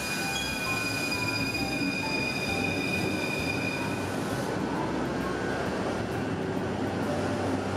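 Paris Métro train running, its wheels squealing in long high steady tones for about the first four seconds, then a steady rumble.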